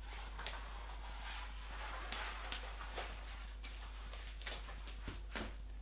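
Rustling packaging and handling noise with scattered light clicks and taps as a fishing rod is taken out of its wrapping, over a steady low hum.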